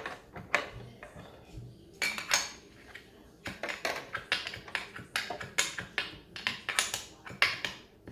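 Hard plastic Playmobil toy parts clicking and clattering as they are handled and pressed into place on the fire station. A few scattered clicks, then a run of quick, irregular clicks from about three and a half seconds in.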